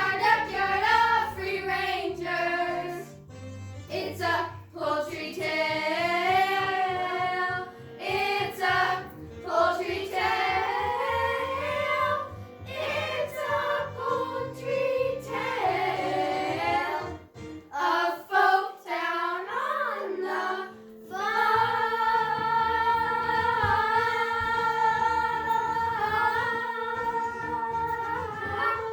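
Young voices singing a show tune with instrumental accompaniment, the melody wavering up and down and ending on a long held note.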